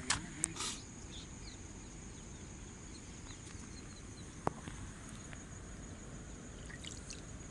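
Steady high-pitched insect trilling, typical of crickets, with a few faint short bird chirps. A few sharp clicks sound just after the start and once about halfway.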